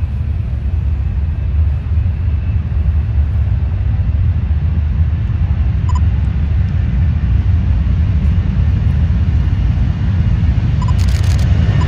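Distant jet engines of a C-17 Globemaster III transport running on the runway, heard as a steady low rumble that grows slightly louder.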